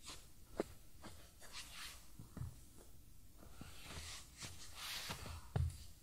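Irregular close-up handling sounds: light clicks, scrapes and rustling, with a sharp knock about half a second in and a heavier thud near the end.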